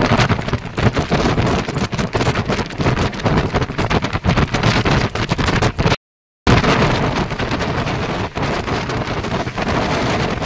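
Loud rushing, rattling noise of a moving train with wind buffeting the microphone, broken by a half-second of dead silence about six seconds in where two clips are joined.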